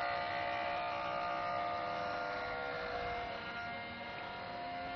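Whine of small electric motors running steadily, the pitch drifting slowly down and back up.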